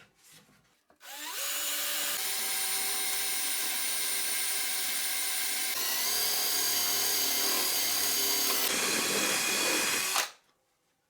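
Electric drill boring a hole through a wooden board, the starter hole for a jigsaw blade. It spins up about a second in, runs steadily with a shift in pitch about halfway through, and stops abruptly near the end.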